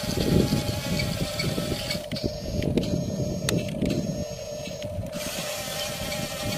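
Huina radio-controlled toy bulldozer driving on its tracks: the small electric drive motors and gearboxes whine steadily while the tracks grind and crunch through loose sand.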